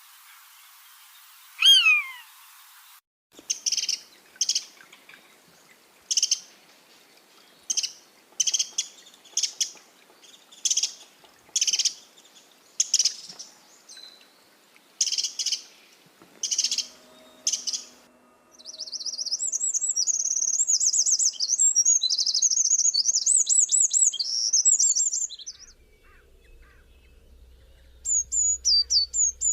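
Birds calling and singing in turn: a falling whistled note near the start, then a series of short, high call notes about once a second. These are followed by a rapid, continuous high warbling song lasting about seven seconds, and quick repeated chirps near the end.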